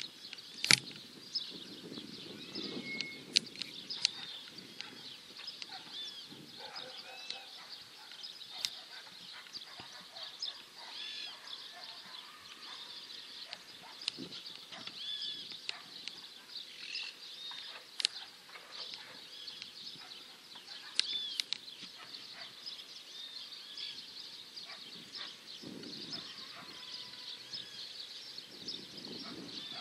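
A chorus of many small birds chirping and twittering without a break, with a few sharp clicks standing out above it now and then.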